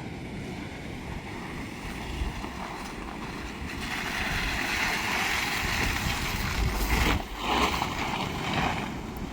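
Tank 500 SUV driving slowly across wet, boggy ground: a steady low rumble from the vehicle, with a rushing noise of tyres through water and mud that swells from about four seconds in and is loudest around seven to eight seconds.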